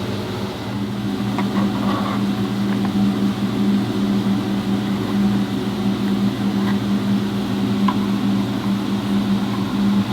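A steady mechanical hum of a running motor or machine, with a few faint ticks and clicks.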